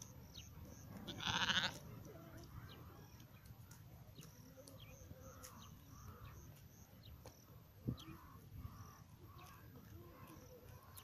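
A sheep bleats once, briefly, about a second in, over a low steady background hiss. A single short knock comes about eight seconds in.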